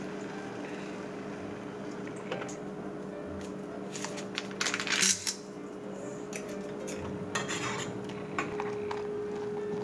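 A metal spoon clinks and scrapes against a saucepan as oatmeal simmering in soy milk is seasoned and stirred. The clatter is loudest about five seconds in, over a steady low hum.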